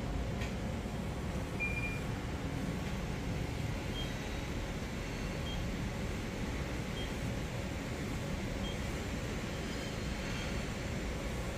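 Coordinate measuring machine running an automatic measuring cycle: a steady hum with short, faint high beeps about every second and a half as the touch probe takes its points.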